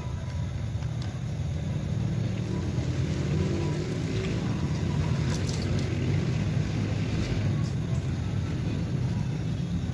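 A steady low rumble with no clear rhythm, with a few faint ticks about halfway through.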